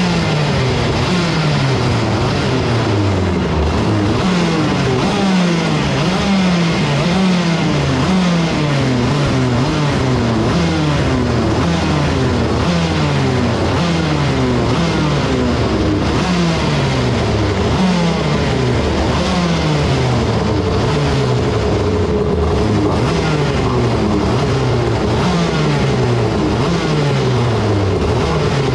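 Two-stroke 125cc shifter kart engines kept running while stationary, their throttles blipped over and over so the revs jump up and fall away about once a second.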